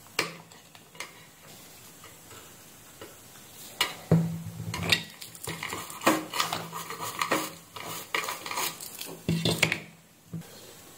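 Metal blade scraping and scratching on a printed circuit board, clearing a damaged copper track ready for repair. There is a sharp click near the start, then a run of quick scratches from about four seconds in until near the end.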